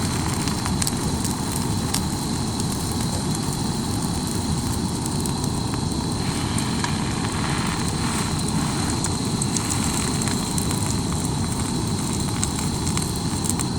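Grilled cheese sandwiches frying in hot ghee in a carbon steel pan over high heat: a steady sizzle, with a few faint crackles.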